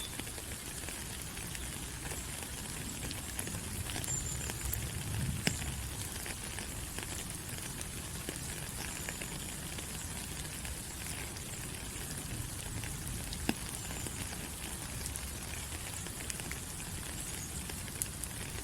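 Steady tropical rain falling on forest leaves, a dense even patter with scattered louder drops ticking. Faint short high chirps recur every few seconds.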